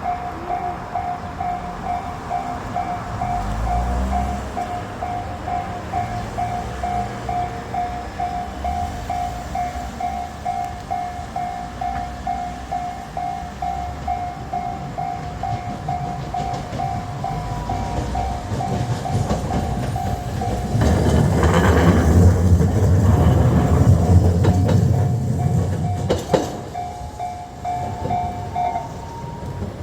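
Level-crossing warning bell ringing in a steady rapid pulse while Kagoshima City Tram car 1017, a low-floor Utram, crosses. The tram's pass comes past the middle as a loud rumble of wheels with clicks over the crossing rails. The bell stops near the end.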